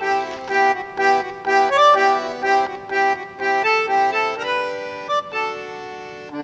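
Background music: a light tune played on accordion in short rhythmic notes, ending on a held chord that fades out near the end.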